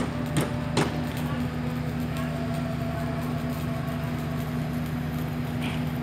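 Hydraulic static pile driver's engine running steadily, with two sharp knocks in the first second.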